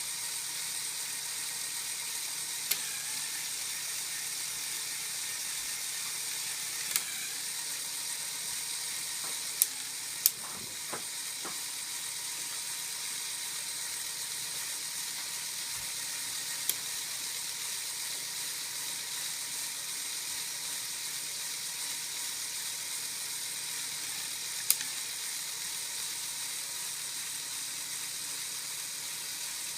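Lego Technic four-wheel-drive model's gear train running, giving a steady high whir with about six sharp clicks scattered through it.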